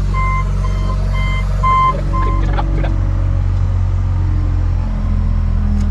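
Caterpillar skid steer loader's diesel engine running steadily, its reversing alarm beeping about twice a second until about two and a half seconds in, when the beeping stops and a few light knocks follow.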